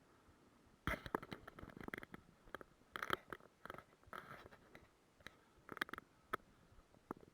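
Close rustling, crinkling and irregular clicks of things being handled. The run of sounds starts about a second in and thins to a few scattered clicks after about six seconds.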